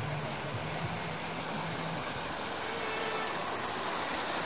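Shallow river water rushing over a low ridge of rocks as small rapids: a steady rushing that grows slightly louder near the end. A faint low hum, like a distant engine, sounds underneath for the first couple of seconds.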